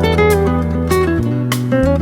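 Music: plucked guitar notes with a sustained bass line underneath.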